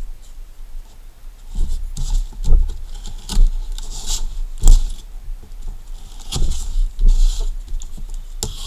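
Cardboard parcel being cut open and handled: a knife blade scraping and slitting packing tape and cardboard, with tearing and rustling of the tape and several sharp knocks as the box is turned over and set down on the mat.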